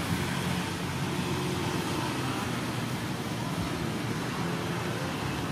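Steady low mechanical hum over constant background noise, with no distinct events.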